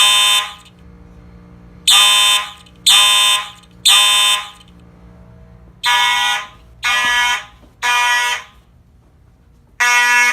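A mixed system of Simplex fire alarm horns, electronic and mechanical, sounding in the Code 3 temporal pattern. Each group is three half-second blasts about a second apart, and the pattern repeats about every four seconds.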